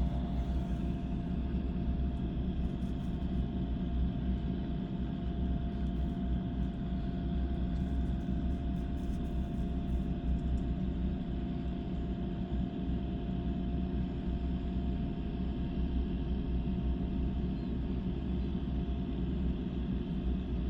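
Drilling rig machinery running nearby: a steady low droning rumble with a constant hum-like tone on top, the round-the-clock background noise of the drilling site.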